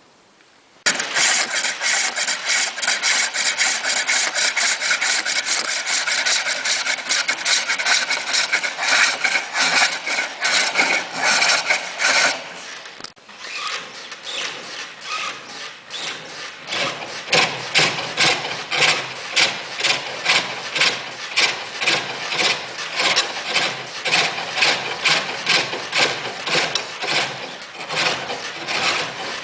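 Lathe cutting a spinning workpiece: a rapid, rhythmic rasping scrape of the tool against the turning stock, starting suddenly about a second in and briefly easing off about halfway through.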